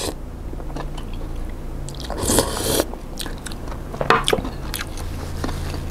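Close-up eating sounds: a mouthful of vegetarian suki slurped in, then chewed with small wet crunches and clicks, and a second longer noisy slurp about two seconds in.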